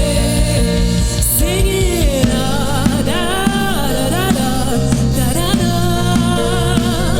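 Gospel song: a solo singer's voice, with held and bending notes, over a steady keyboard and bass accompaniment.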